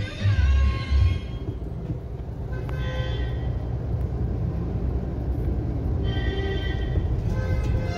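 Low steady rumble of a car's engine and road noise heard from inside the cabin as it rolls slowly through a toll plaza, with brief tones about three seconds in and again around six seconds in.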